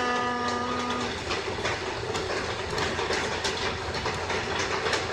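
A man's singing voice holding one steady note that stops about a second in, then the karaoke backing track of the song, heard as a harsh noisy wash with sharp hits.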